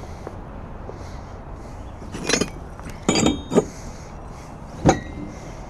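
Plasma-cut steel turbo flanges clinking and knocking together inside a wooden box as it is handled. There are a couple of knocks about two seconds in, a quick cluster a second later, and one sharp metallic clank near the end with a short ring after it.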